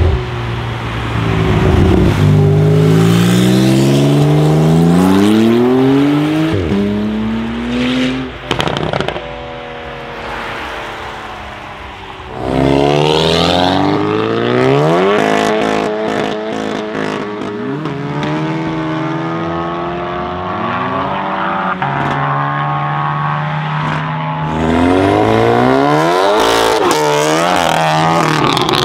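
Two modified cars accelerating hard in turn. First a Porsche 911 Turbo's twin-turbo flat-six pulls away, its revs climbing and dropping through gear changes, with a string of sharp pops about nine seconds in. Then, about twelve seconds in, a modified Volkswagen Golf GTI's turbocharged four-cylinder revs and accelerates through the gears, with more sharp pops between the shifts.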